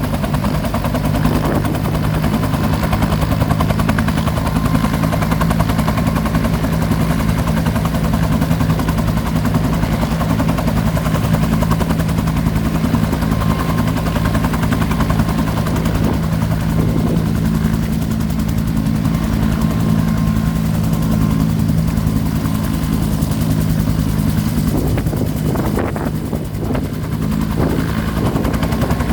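Helicopter running, its rotor blades beating out a rapid, steady chop over a low engine drone.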